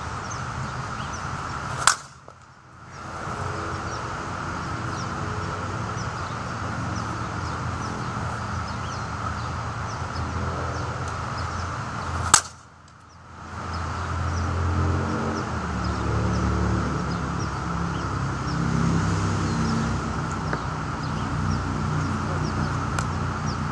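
Monsta composite slowpitch softball bat hitting a softball twice, about ten seconds apart; each contact is a single sharp crack.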